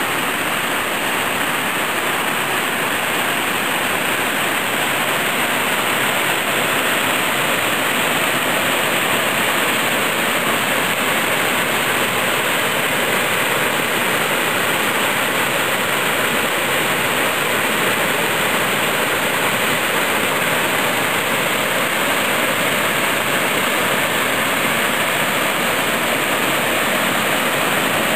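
Waterfall pouring over rock ledges into a pool: a steady, unbroken rush of falling water.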